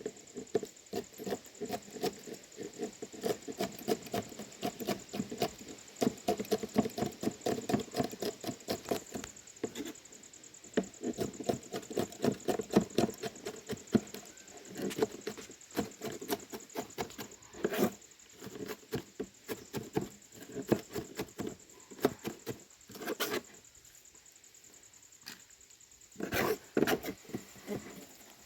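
A kitchen knife chopping on a cutting board in quick, even strokes, about five a second, in runs with short pauses, thinning to a few scattered knocks near the end.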